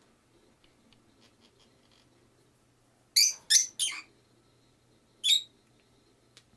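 Small pet parrot giving short, shrill chirps: three in quick succession a little past halfway, then one more near the end. Faint light clicks come before them.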